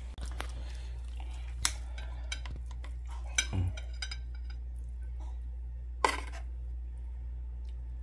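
A metal spoon and fork clinking and scraping against a metal roasting pan and a ceramic plate while fish is served, several separate clinks. A steady low hum runs underneath.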